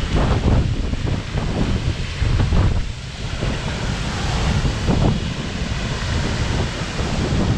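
Steady rush of Havasu Falls, a large waterfall close by, with wind and blowing mist buffeting the microphone in uneven gusts.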